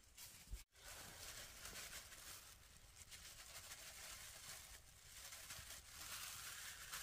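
Near silence: faint steady background hiss, with a brief complete dropout a little over half a second in.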